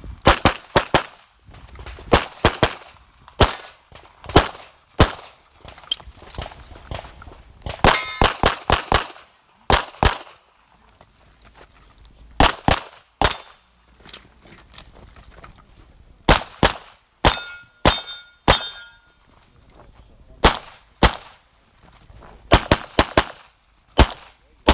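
CZ Shadow 2 pistol fired rapidly through an IPSC stage, in quick pairs and short strings with pauses between positions. Steel targets clang and ring after some of the hits.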